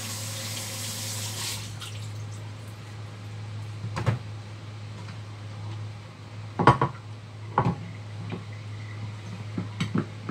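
A kitchen tap runs briefly into the sink and stops, then a metal frying pan knocks and clanks several times as it is lifted and set down, the loudest clank about two-thirds of the way through. A steady low hum sits underneath.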